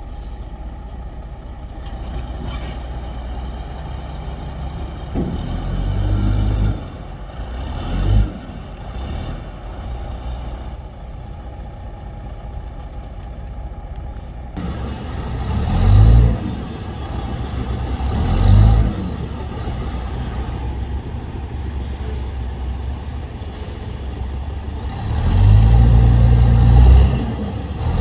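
Heavy diesel engines of a bulldozer and a stuck dump truck running under load, the engine note swelling loudly several times in short surges, the longest near the end.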